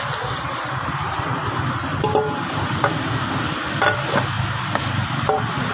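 Cling film crinkling and a metal bowl clicking against the block as the bowl is wrapped, a handful of short sharp clicks over a steady hiss.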